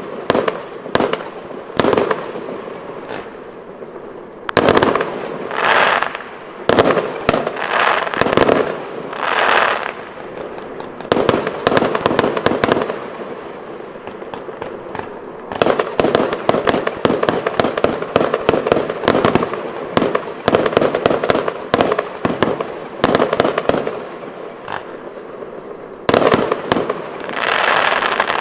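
Fireworks display: a dense run of bangs and crackling shells, with rushing hisses of rising shells at a few points and a stretch of rapid crackling in the middle.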